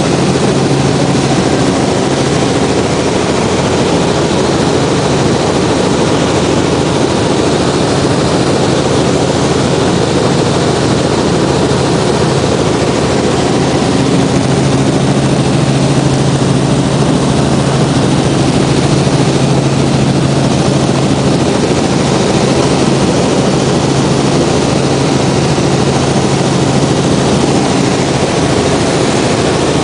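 Robinson R44 Clipper II helicopter in cruise flight, heard from inside the cabin: a loud, steady drone of its piston engine and rotors, with a constant low hum.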